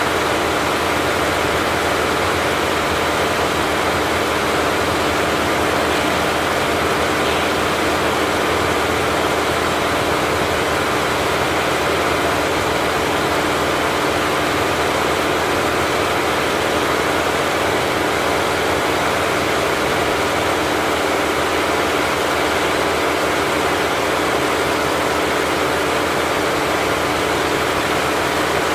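Richpeace 20-head flat embroidery machine stitching at 1200 RPM, all heads running at once: a loud, steady mechanical running noise that goes on at an even level without a stop.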